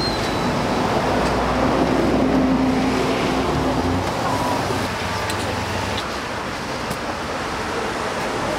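Street traffic noise with a vehicle's engine hum passing close by, loudest in the first few seconds and then easing into steady road noise.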